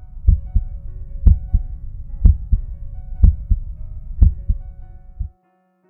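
Healthy human heart sounds: paired lub-dub beats, the first thump of each pair stronger, about once a second, stopping shortly before the end.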